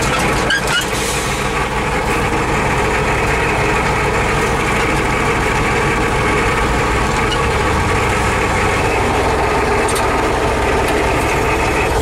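T-150K tractor's diesel engine running steadily, heard from inside the cab.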